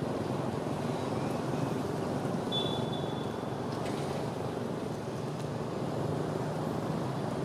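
Steady outdoor background rumble, like distant traffic, with a short high tone about two and a half seconds in.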